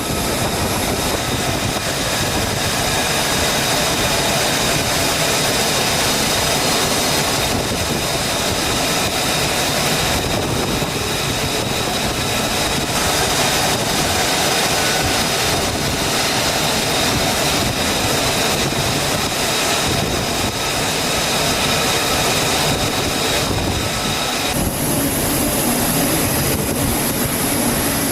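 F-35C Lightning II jet engine running at high power: a steady, loud rush with high whining tones. About 24 seconds in, the sound shifts and a higher whine comes in.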